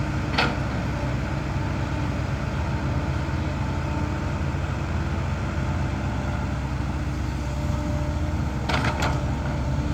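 Heavy vehicle engine running steadily at a low, even speed, with a short sharp sound about half a second in and two more near the end.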